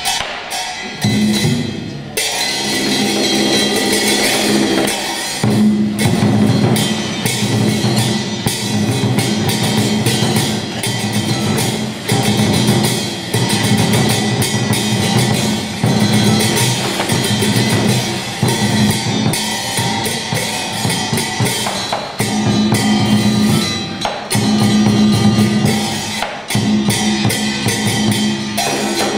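Traditional Vietnamese ensemble music accompanying a water puppet show: drums beat rapidly and densely over held instrumental tones.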